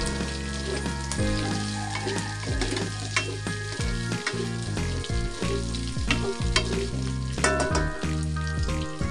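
Pork cubes sizzling as they fry in a stainless steel pan. A wooden spatula stirs them with frequent short clicks and scrapes against the pan.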